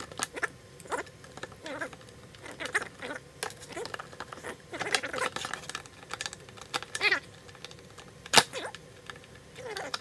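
Handwork with a screwdriver on a generator's plastic control-panel housing: scattered clicks, scrapes and short squeaky creaks of plastic, with one sharp click about eight seconds in.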